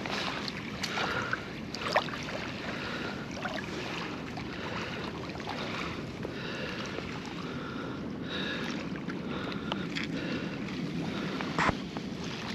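Steady hiss of wind on the microphone and small waves washing on the shore, with a couple of faint clicks of handling.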